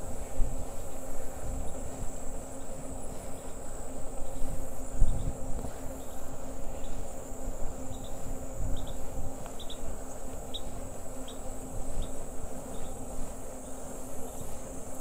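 Steady high-pitched insect chorus, with wind rumbling on the microphone of a moving bike and a steady low hum underneath. A few short high chirps come through around the middle.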